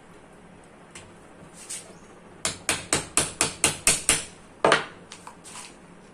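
Hammer tapping, about seven quick strikes at roughly four a second, then one harder blow and a few lighter taps.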